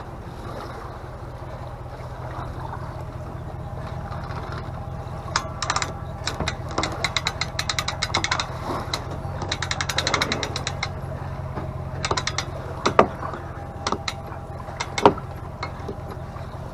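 A motor runs with a steady low hum. Bursts of rapid mechanical clicking come from about five to eleven seconds in, like a ratchet being worked, with a couple of sharp knocks later on.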